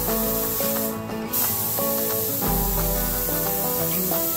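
Sata 1500 paint spray gun hissing steadily as it sprays paint, the hiss cutting out for a moment about a second in when the trigger is let off. Background music plays along with it.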